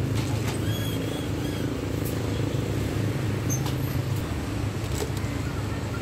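Steady low hum of an idling vehicle engine and street traffic, with a few light clicks scattered through.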